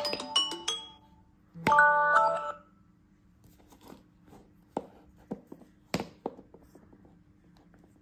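Samsung Galaxy phone alarm tone, a marimba-like chime melody, stopping within the first second; a short snatch of the chime plays again about one and a half seconds in and cuts off. Then come light taps and clicks of fingers on the phones, with a sharper click near six seconds as the Galaxy Z Fold3 is folded shut.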